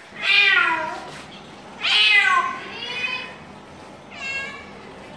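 Domestic cat meowing four times, the first two calls loudest and the last two fainter and shorter, each call bending down in pitch at its end.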